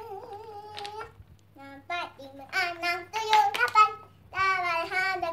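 A young girl singing to herself in short melodic phrases with some held notes, with a few light clacks of wooden toy blocks being set down on the table.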